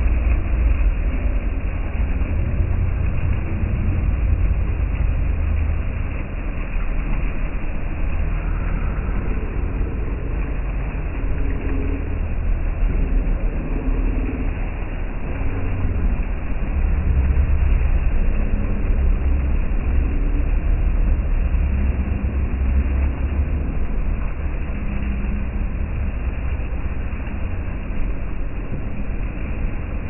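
Steady splashing rush of water from a bubbler fountain in a pond, over a constant deep rumble.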